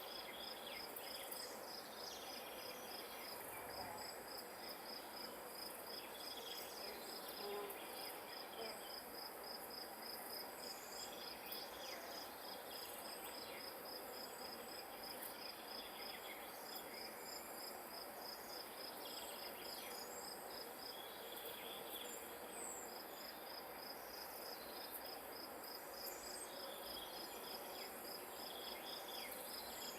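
An insect chirping steadily in a high, even pulse, about three chirps a second, pausing briefly now and then. A few faint higher chirps and a soft outdoor hiss sit behind it.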